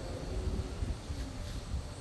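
Wind gusting over the microphone, a low uneven rumble, with faint wavering tones in the background.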